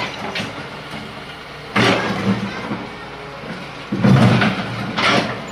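Tracked hydraulic excavator's diesel engine running steadily while its bucket works a heap of demolition rubble of broken bricks and concrete. Rubble scrapes and clatters in three loud bursts, about two, four and five seconds in.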